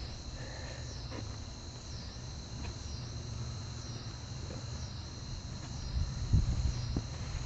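Steady high-pitched insect chirring with a regular pulse, over low rustling handling noise and a couple of soft thumps about six seconds in, as a gloved hand presses ceramic fiber wool into the forge body.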